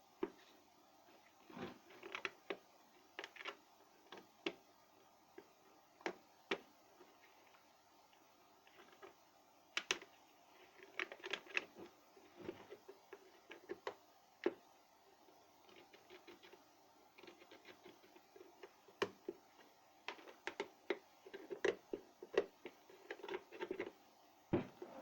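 Irregular light clicks and taps of small parts and tools being handled on a kettle under repair, coming in scattered clusters, busiest near the end.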